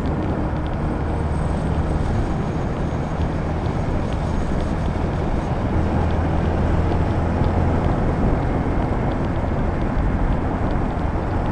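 Yamaha Sniper 150's single-cylinder four-stroke engine running at a steady cruising speed, with a constant rush of wind and road noise over the microphone.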